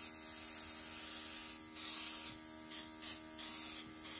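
Airbrush makeup gun spraying in short hissing bursts, over the steady electric hum of a Luminess airbrush compressor.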